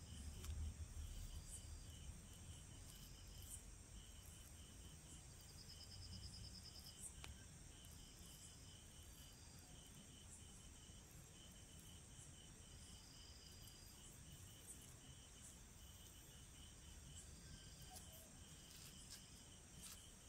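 Near silence outdoors, with faint insect chirping in a steady pulsing rhythm and a higher trill now and then, over a low background rumble.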